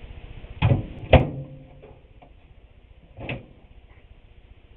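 Microwave oven door being worked, its latch prongs clacking: two sharp clacks about half a second apart about a second in, then a softer click a couple of seconds later.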